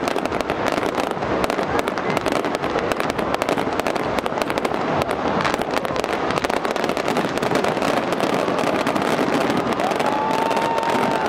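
Fireworks going off in a dense, continuous crackle of many rapid small bursts, with a thin whistle coming in near the end.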